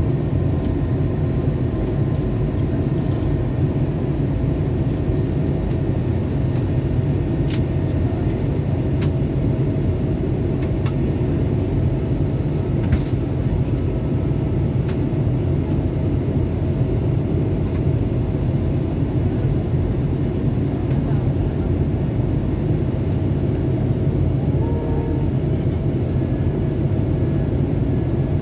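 Airliner cabin noise in flight: the steady rumble of the jet engines and airflow, with a faint steady whine running through it.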